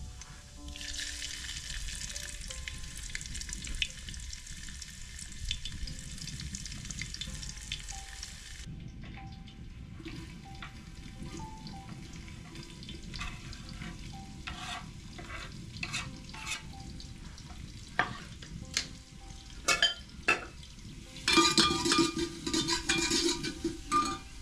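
Spices dropped into hot oil in a cooking pot sizzle steadily for about eight seconds. Then a knife chops onion on a wooden board in uneven knocks, and near the end the chopped onion goes into the hot oil with a louder sizzle as it is stirred with a ladle.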